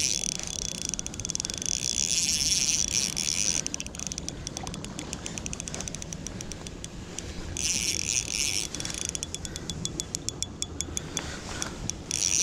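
Drag of a Shimano Miravel spinning reel buzzing in spurts as a hooked trout pulls line off against a loosely set drag, with rapid ticking between the runs. The longest run is at the start, a short one comes about eight seconds in, and another near the end.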